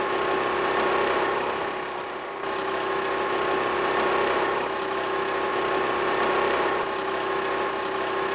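Steady engine sound effect of a small vehicle running at an even pace.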